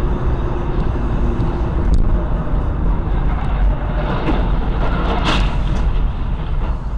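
Steady road and engine noise of a moving car, heard from inside the cabin through a dashcam, with a brief sharp noise about five seconds in.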